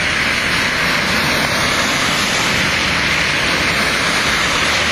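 Steady, loud rushing hiss of water on a flooded street, unbroken throughout.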